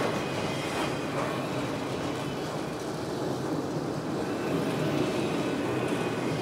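Model railroad freight train rolling along the track: a steady rumble of wheels on rail.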